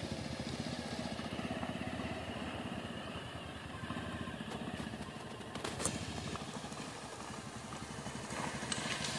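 Motorcycle engine running steadily as the bike rides slowly over a stony riverbed, with a brief clatter about six seconds in.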